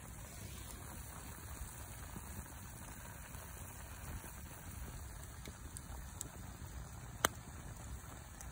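Wood fire burning under a pot on a grill: a low, steady rumble and hiss, with one sharp crackle about seven seconds in.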